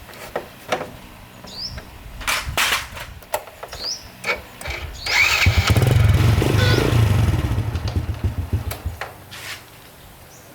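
A few clicks and knocks, then a small motorcycle engine starts about halfway through and runs with a low, pulsing note that fades away over the next few seconds.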